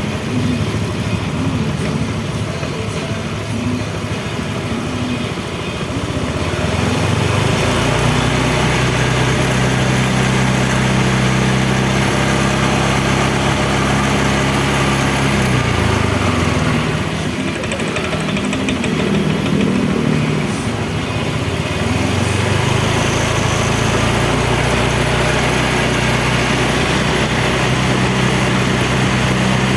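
Honda Vario 125's liquid-cooled single-cylinder scooter engine idling in normal condition. It settles into a louder, steady idle about seven seconds in, dips briefly in pitch about halfway through, runs unevenly for a few seconds, then steadies again.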